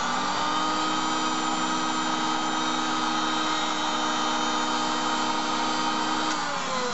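Auto lens groover running steadily while it cuts a groove around the edge of an eyeglass lens, a whine of several steady tones. About six seconds in it is switched off and the whine falls in pitch as the motor winds down, the lens having made its two full turns.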